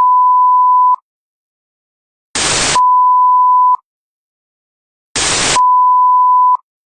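Technical-difficulties sound effect: a short burst of static followed by a steady 1 kHz test-tone beep of about a second, then silence. The cycle repeats three times.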